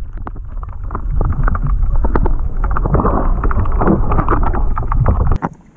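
Muffled underwater rumble and sloshing with crackling, bubbling clicks, picked up by an action camera held below the water's surface; it cuts off abruptly about five seconds in.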